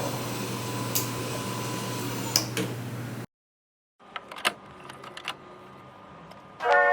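A steady hum with a couple of sharp clicks, cut off abruptly by a moment of silence, then scattered light clicks and knocks of handling; music begins near the end.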